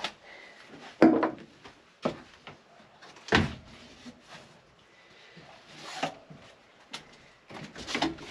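About half a dozen separate knocks and clunks of parts and packaging being handled and set down, the loudest about a second in and a quicker cluster near the end.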